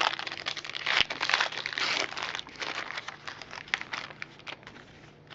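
Plastic trading-card pack wrapper crinkling as it is handled and torn open, a dense, irregular crackle that quietens near the end.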